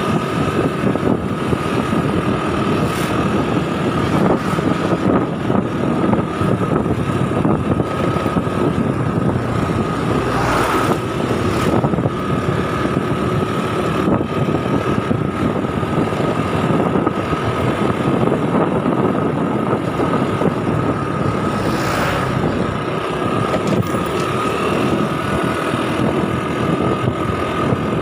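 Motor scooter being ridden along a road: engine running with a steady whine, under heavy wind buffeting on the microphone. Two brief louder rushes come through, about a third of the way in and again about three-quarters through.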